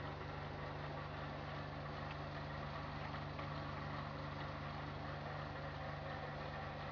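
A steady low motor hum under an even hiss, holding unchanged throughout.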